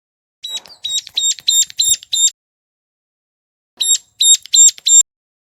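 Ciblek gunung, a prinia, calling in two bursts of sharp, high, rapidly repeated notes, about five or six to a burst, with a pause of over a second between them. It is a lure call recording used to attract wild birds of its kind.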